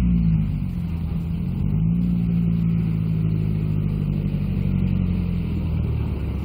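Small school bus's engine running as it drives slowly along a road, a steady low engine note that lifts slightly about two seconds in.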